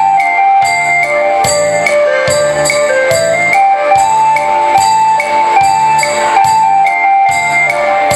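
Instrumental break in a Vietnamese pop song: a stepping melody over a steady beat, with bright jingling percussion on the beat.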